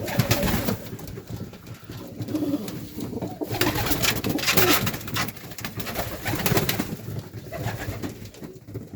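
Serbian highflyer pigeons cooing in the loft, with bursts of rustling and wing flapping about a second in and again around four to five seconds in.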